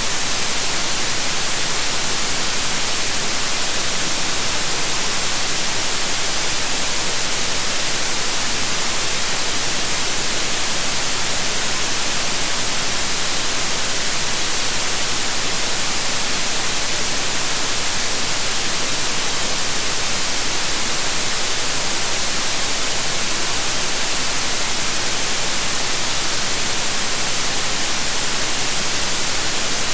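Steady, unbroken white noise: an even hiss, brightest in the treble, with no change over the whole stretch.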